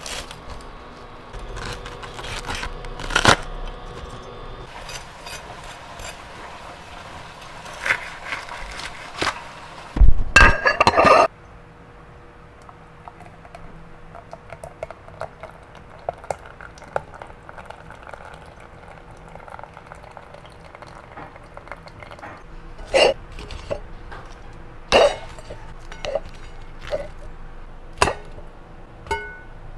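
Knife blade crunching through the crisp batter crust of a fried chicken leg, with a very loud clattering burst about ten seconds in. Gravy then pours into a ceramic bowl, followed near the end by metal tongs clinking on a ceramic plate as fried chicken pieces are set down.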